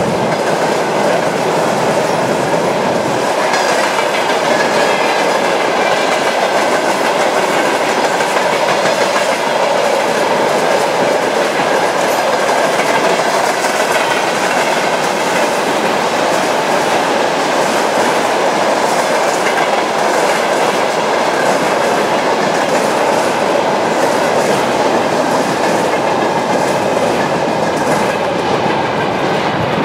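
Long freight train of tank cars, boxcars and enclosed car-carrier wagons rolling past: a steady, loud noise of steel wheels running on the rails.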